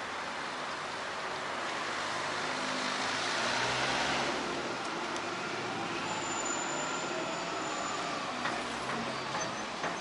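Street traffic: a motor vehicle passes, its noise swelling to a peak about four seconds in and then easing off.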